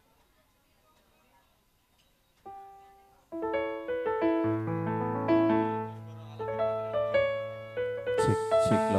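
Near silence at first; about two and a half seconds in, an electronic keyboard starts playing piano-like chords, with held bass notes joining after a couple of seconds. Drum strokes come in near the end.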